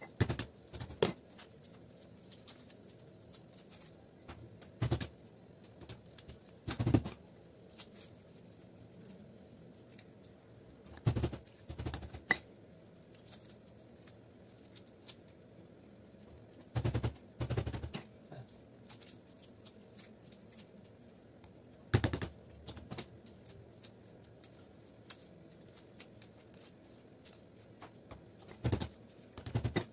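Copper winding wire being pulled and torn off salvaged ballast coils by hand: scattered sharp knocks, clicks and wire rustles in short clusters every few seconds, over a faint steady hum.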